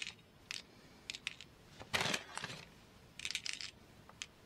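Plastic bag of seed beads crinkling and beads clicking as fingers pick them out and drop them into a card, in short separate bursts, the loudest about two seconds in.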